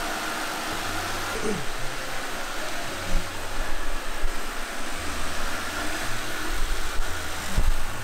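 Robot vacuum cleaner running: the steady whir of its suction fan and brushes as it drives across a hard floor, with a few knocks, the loudest near the end.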